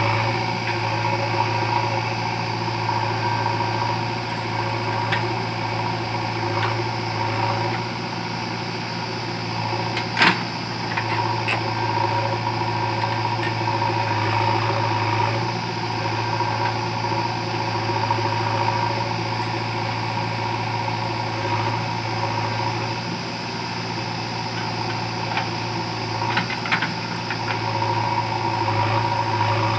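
JCB 3DX backhoe loader's diesel engine running steadily while the backhoe arm digs soil. A single sharp knock about ten seconds in.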